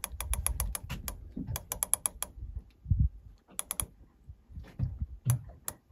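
A fishing reel's ratchet clicking in quick bursts, a fast run of clicks in the first two seconds and shorter runs later, with a single dull knock about three seconds in.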